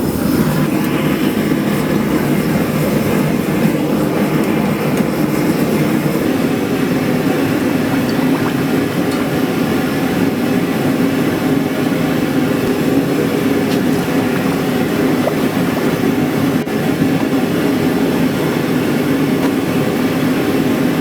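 A forge running with a steady, loud rushing noise while steel pieces heat toward non-magnetic for a hardening quench.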